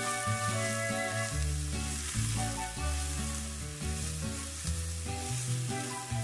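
Diced vegetables sizzling as they sauté in a stainless steel pan, stirred with a wooden spatula. Background music with a bass line and melody plays over the sizzle.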